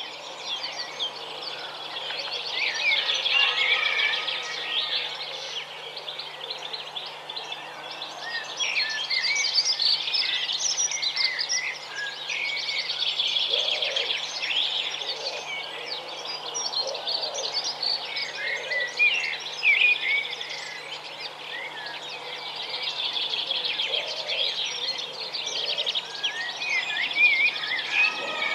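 Several small songbirds singing at once, a continuous tangle of high chirps and trills.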